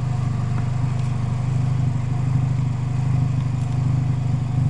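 A motor vehicle's engine idling steadily, a low even hum with no revving.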